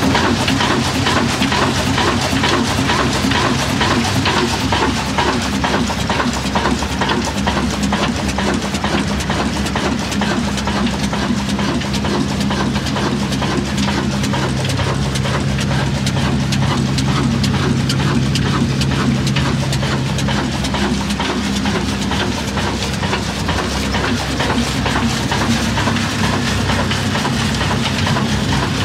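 An old Ruston Hornsby stationary diesel engine running steadily, with a fast, even clatter over a low hum.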